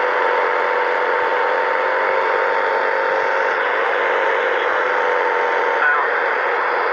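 CB radio speaker hissing with steady static on the open channel, with faint, steady whistling tones beneath the hiss.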